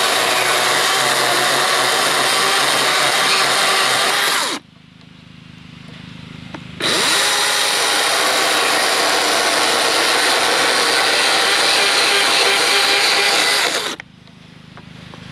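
Chainsaw at full throttle cutting a wooden fence post to a point. It drops to idle about four and a half seconds in, revs back up about two seconds later for a cut of about seven seconds, then falls back to idle near the end.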